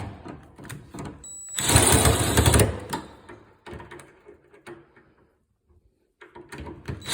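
Power drill running in one burst of about a second, driving a screw into a refrigerator door's hinge bracket. Its motor whine is heard briefly just before. Light clicks and handling knocks follow near the end.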